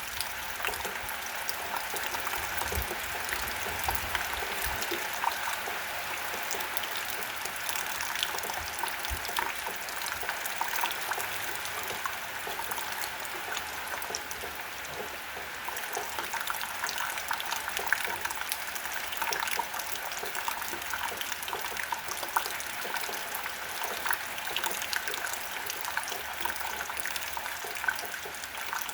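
Steady rainfall: an even hiss of falling rain with many individual drops heard as small scattered ticks, and a trickle of running water.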